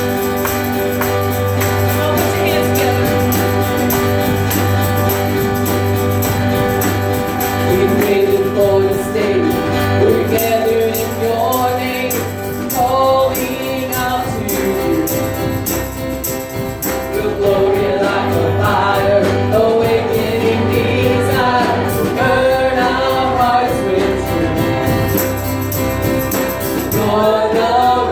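Contemporary worship song: a band with bass and sustained chords, joined by singing voices about eight seconds in.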